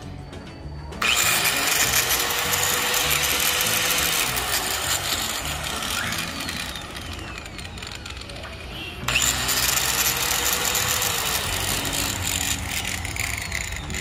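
DeWalt 710 W angle grinder on its first test run: switched on about a second in, running at speed, then winding down with a falling whine, and switched on again about nine seconds in.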